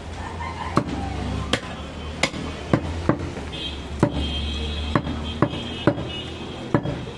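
Large butcher's knife chopping mutton on a wooden log chopping block: about ten sharp strikes at an uneven pace, roughly one every half second to one second, over a steady low hum.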